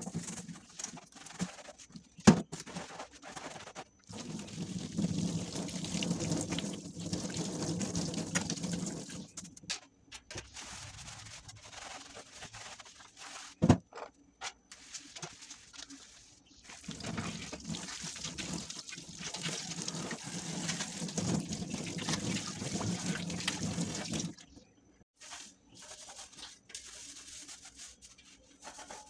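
Kitchen tap running into a sink in two long stretches while air fryer baskets are washed with a soapy sponge, with two sharp knocks of the parts against the sink. Near the end the water is off and only quieter handling sounds remain.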